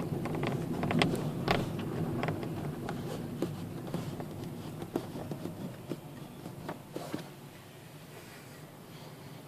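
Hyundai Solaris dashboard creaking in short, irregular clicks and ticks over the low rumble of the car cabin. It is a loose-trim creak in the dashboard. The clicks thin out and stop about seven seconds in, and the cabin noise drops.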